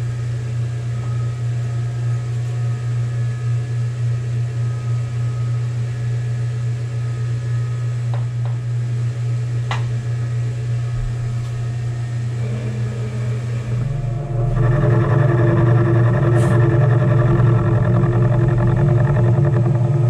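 First vertical knee mill running with its end mill cutting a groove in cast aluminium: a steady machine hum that turns louder and rougher about fourteen seconds in.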